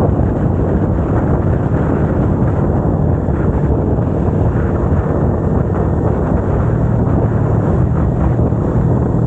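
Kawasaki Ninja 250R's parallel-twin engine running at a steady cruise, heard under loud wind noise on the microphone. The engine's even hum comes through more clearly in the last few seconds.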